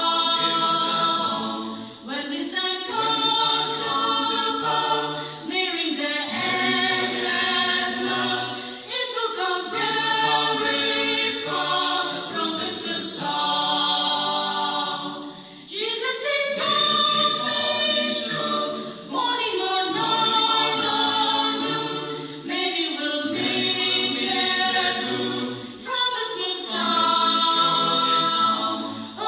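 Mixed church choir of men's and women's voices singing a Christian hymn, unaccompanied, in sustained phrases separated by short breathing pauses.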